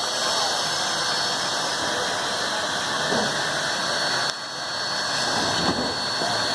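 Steady hiss of steam from the steam locomotive Sierra Railway No. 3, with a constant high whistling tone in the hiss.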